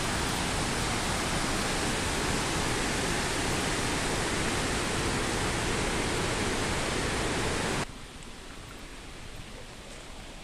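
Steady, loud rush of a mountain river flowing below. About three-quarters of the way through it cuts off abruptly, leaving a much quieter background with a few faint ticks.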